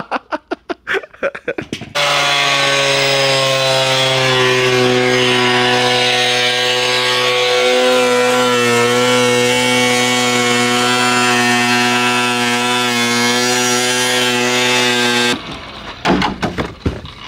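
A rapid run of clicks, then about two seconds in a power cutting tool starts up and cuts into a Corvette's composite hood to open it for hood vents, a steady pitched whine that wavers slightly and cuts off suddenly near the end.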